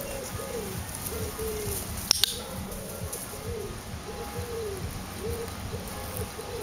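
A dove cooing over and over in short low coos about every half second, with a sharp double click about two seconds in.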